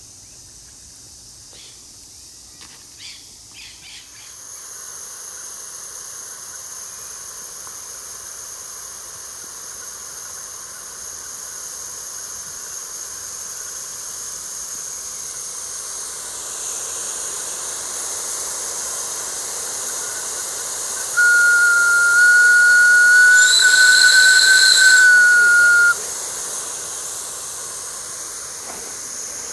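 Gauge 1 live steam model of a PLM 231A Pacific hissing steam steadily. Its steam whistle then blows one loud held note for about five seconds, edging slightly up in pitch, before cutting off.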